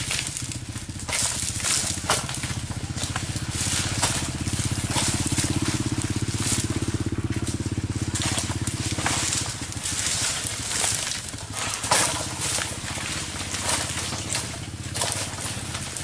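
A small engine running steadily with a low pulsing note, a little louder around the middle, and repeated sharp crackles and snaps over it.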